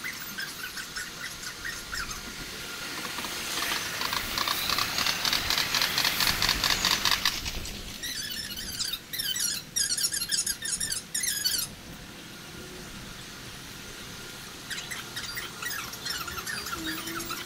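Shinkansen station sounds played back at six times speed, which turns them into high, squeaky chattering and chirping. A louder rush of noise comes a few seconds in, and sharp high chirps follow it.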